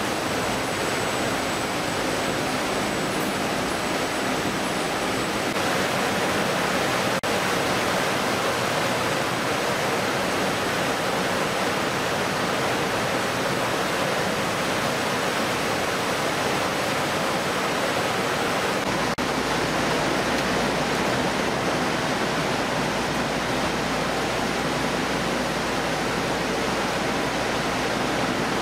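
Steady rushing noise of a fish-processing line, machinery and running water spraying over conveyors and chutes together. It changes abruptly about 7 and 19 seconds in, with more low rumble after the second change.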